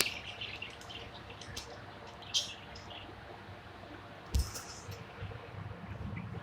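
Budgerigar making short, scattered high chirps and clicks, with a louder chirp about two and a half seconds in and a single knock a couple of seconds later.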